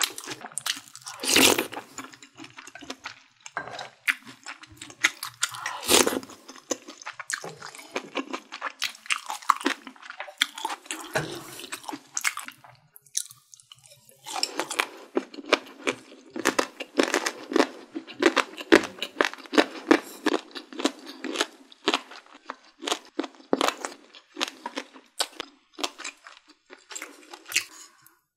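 Close-miked eating: steady chewing with wet mouth clicks and smacks, and some crunching. It pauses briefly about halfway, then comes back denser.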